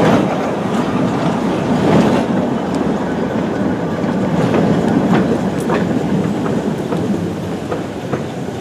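Narrow-gauge train's wagons rolling past and pulling away, wheels clicking over the rail joints, the rumble fading as the train leaves.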